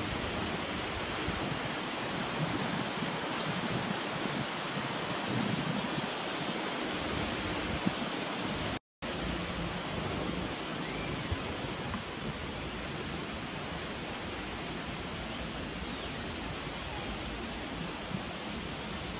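Steady outdoor background hiss with no clear single source, broken by a brief cut to silence about nine seconds in. A few faint short chirps come through in the second half.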